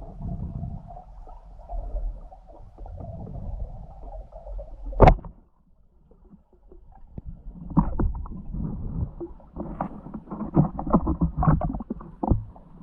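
Muffled underwater sound of a spearfisher moving in the water: low rumble with scattered knocks, a single sharp loud click about five seconds in, then a brief lull and a dense run of crackling knocks.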